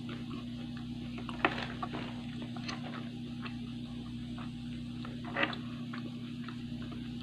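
Close-mic chewing of a fried risole pastry and green chili: a run of small crisp clicks and mouth sounds, with two louder clicks about one and a half and five and a half seconds in. A steady low hum runs underneath.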